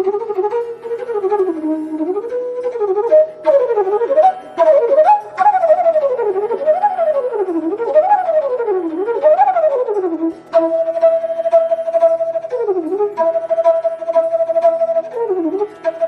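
Background instrumental music: a flute melody of quick rising and falling runs, then a long held higher note with short breaks from about ten seconds in, over a faint low drone.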